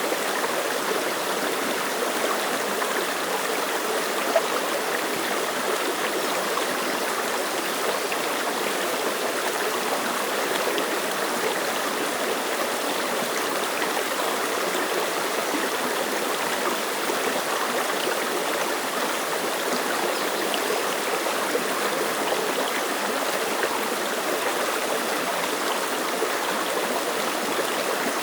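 Mountain stream running over rocks: a steady, even babble of rushing water. One brief sharper sound stands out about four seconds in.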